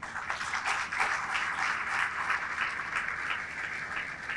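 Audience applauding, starting all at once and beginning to die down near the end.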